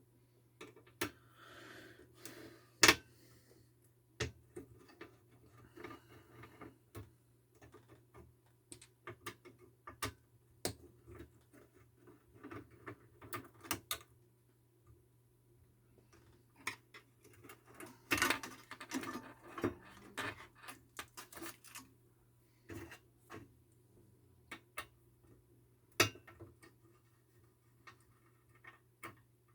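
Irregular clicks, taps and knocks of small tools and parts being handled during a monitor repair, with a stretch of rustling near the middle and two sharper knocks, one early and one near the end, over a steady low hum.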